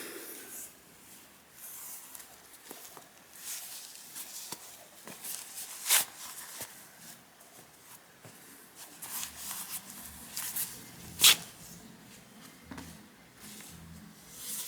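Packaging being handled and unwrapped: scattered rustling and crinkling, with two sharp clicks about six and eleven seconds in.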